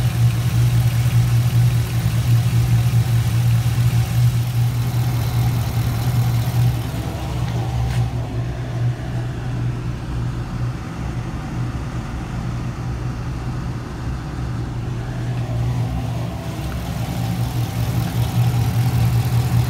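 Camaro SS's 6.2-litre V8 idling steadily, fully warmed up with the coolant at about 216°F, short of the 220° point where the cooling fans come on. In the middle stretch it sounds duller and quieter, heard from inside the cabin, with a single click about 8 seconds in.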